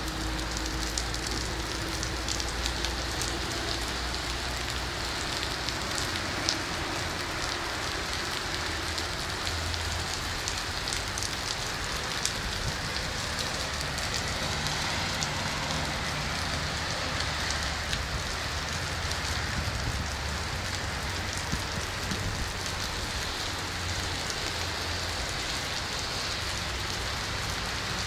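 Steady downpour of rain on pavement and cars, an even hiss with many close drops crackling through it and a low rumble underneath.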